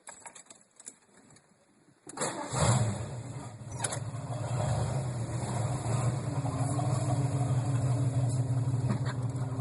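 1982 Mercury Capri RS's 5.0 V8 starting about two seconds in, flaring up loud as it catches, then settling into a steady idle. The exhaust is open just after the catalytic converters with the muffler detached, so it idles loud and unmuffled.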